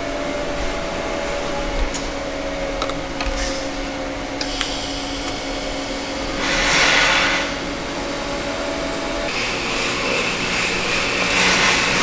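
TIG welding arc on thin chromoly tubing, a steady high hiss that starts abruptly about four seconds in, over a steady background hum.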